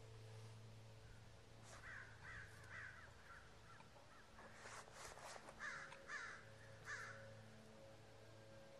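Crow cawing faintly: a run of about four short caws about two seconds in, then three louder caws a few seconds later, over a steady low hum.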